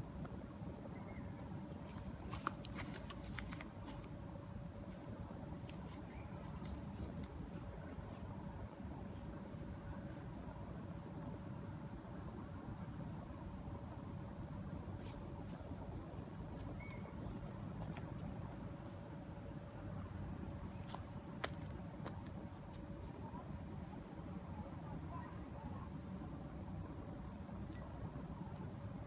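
Night insects, crickets among them, calling. One keeps up an unbroken high trill, while very short higher chirps repeat every second or two.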